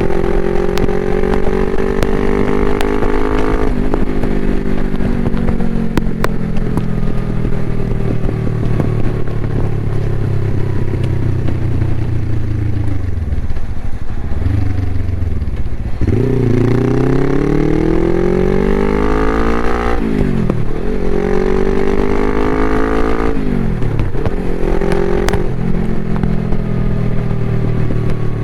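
Suzuki GS500E's air-cooled parallel-twin, through a Takkoni aftermarket exhaust, pulling in gear with the revs rising, then a long roll-off with the revs falling and a few sharp pops. It drops nearly to idle, then accelerates hard through several quick upshifts and settles into a steady cruise near the end.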